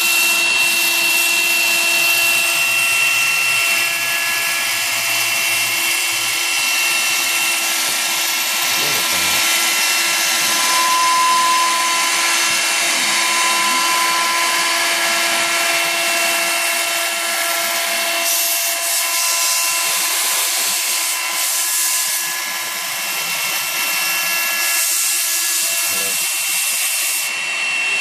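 CNC router's 3 kW air-cooled spindle whining at a steady speed while its 1/4-inch single-flute carbide upspiral bit cuts through 1/8-inch acrylic sheet, a dense hissing cut noise under several steady tones. The cutting noise shifts about two-thirds of the way through as the bit carries on around the circle.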